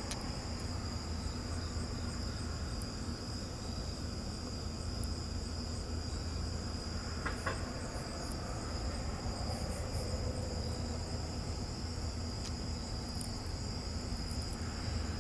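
Steady, high-pitched insect trilling, like crickets, over a low hum.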